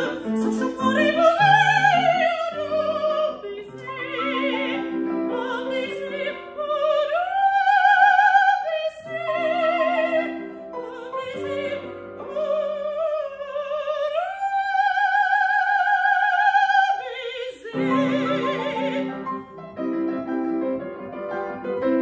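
A woman singing an operatic aria in French with vibrato, accompanied by a grand piano. She holds one long high note, then stops about three-quarters of the way through, and the piano plays on alone.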